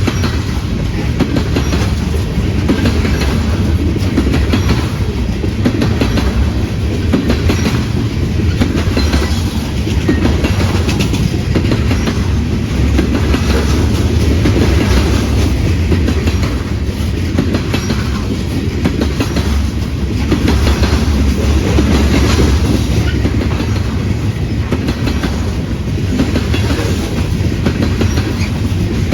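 Train rolling past with a steady low rumble, its wheels clicking over the rail joints in a regular rhythm of about one click set a second.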